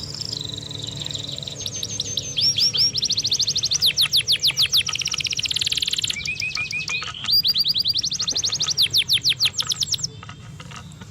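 A songbird singing: rapid runs of clear, high-pitched chirps and trills in repeated phrases, stopping about ten seconds in.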